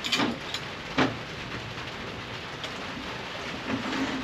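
Steady rain, with a few short knocks and clicks of the tiller's back wheels being handled, the loudest about a second in.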